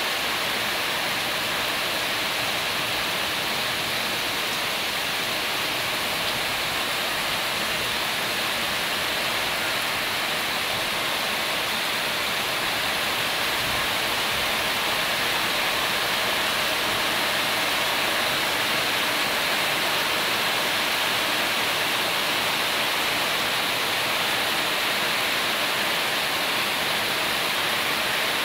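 Heavy rain falling steadily on corrugated tin roofs and foliage, an even, unbroken patter.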